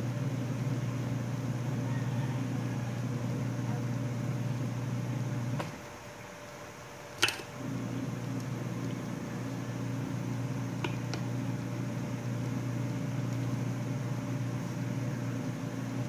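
A steady low machine-like hum, which drops away for about two seconds near the middle, with a few sharp clicks from a small metal tool prying at the seal of an old motorcycle wheel bearing. The loudest click comes just as the hum returns.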